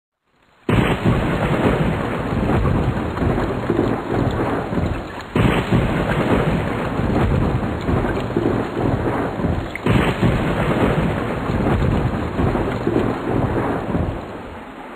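Thunderstorm sound effect: heavy rain falling with rumbling thunder. It starts suddenly just under a second in, jumps abruptly about five and ten seconds in, and eases off near the end.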